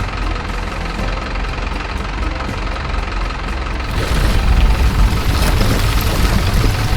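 Radio-controlled model construction vehicle running with a steady engine-like idling rumble that gets louder about four seconds in.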